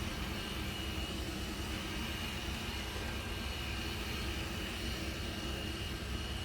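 Xiaomi Mijia 1C robot vacuum running: a steady whir from its suction fan and motors, with a constant high whine.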